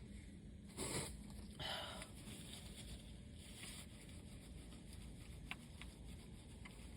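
A person's short, breathy nose-and-mouth sounds, like sniffs or exhales, twice in the first two seconds during an allergy sneezing fit. A couple of faint clicks follow later.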